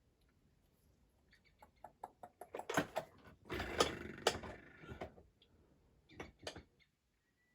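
Small objects being handled on a workbench: a run of clicks, knocks and rattles, busiest in the middle, stopping abruptly near the end.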